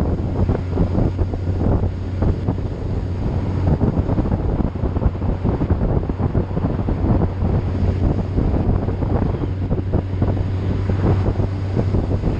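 Heavy wind buffeting on the microphone over a steady low engine drone, as from a vehicle on the move.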